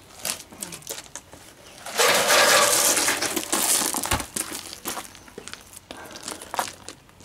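Footsteps crunching on gravel, with scattered crunches and a louder, denser stretch of crunching about two seconds in, and a low thud about four seconds in.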